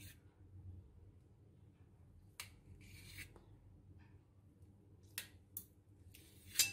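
Kitchen knife cutting through a block of paneer on a steel plate: a handful of faint, sharp clicks and scrapes as the blade meets the plate, spaced irregularly, the loudest near the end.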